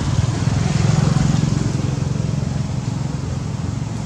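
A small engine running steadily, giving a loud low rumble that swells slightly about a second in.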